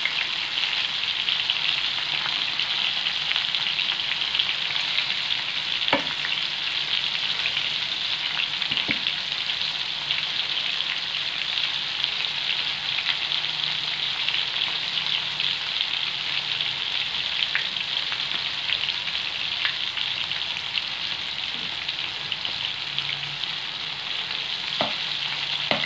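Batter-coated prawns deep-frying in hot oil in a wok: a steady, even sizzle, with a few light clicks about six and nine seconds in and near the end.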